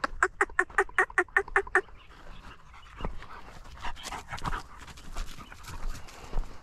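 An animal gives a quick run of about ten short, sharp, pitched calls in under two seconds, then footsteps crunch and brush through dry scrub.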